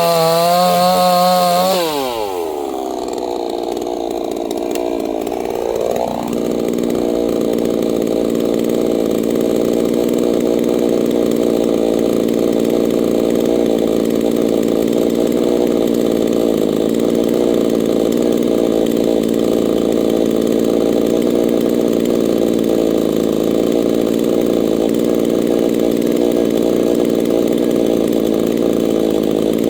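Neotec NCS6800 68cc two-stroke chainsaw running at high revs, then dropping sharply in pitch about two seconds in, rising briefly, and running on steadily with a lower, rougher note for the rest.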